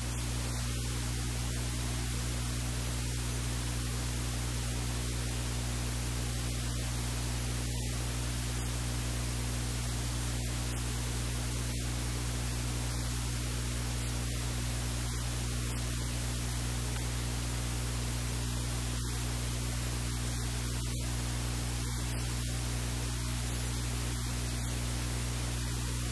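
Steady hiss with a low electrical hum underneath, unchanging throughout.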